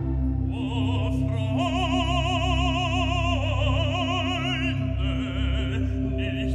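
Background music in an operatic style: long high notes with wide vibrato over sustained low notes.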